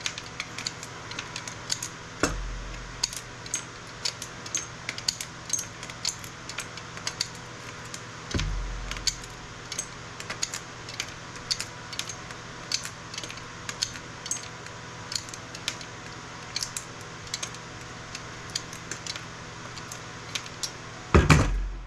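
Small hard parts clicking and clinking as scrap circuit boards are handled and stripped of components, several light knocks a second. There are dull thuds about two and eight seconds in, and a louder clatter just before the end.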